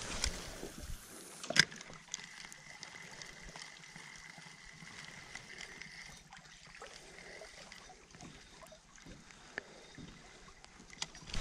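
Quiet water sounds around a canoe while a spinning reel is cranked, with small ticks throughout and one sharp click about a second and a half in.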